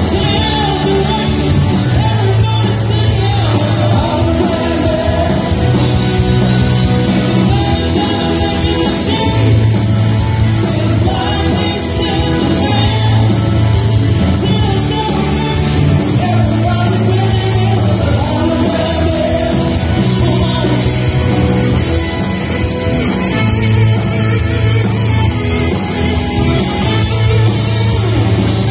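Rock band playing live: a male singer over electric guitars, bass guitar and drums, with a bass line that repeats every couple of seconds.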